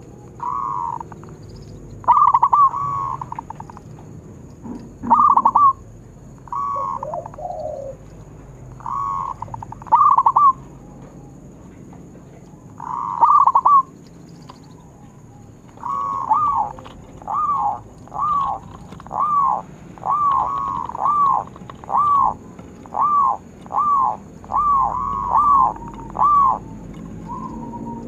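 Zebra dove (perkutut) cooing: short, ringing, arched notes. A few come in small groups at first, then a quick, even run of about fifteen notes in the second half.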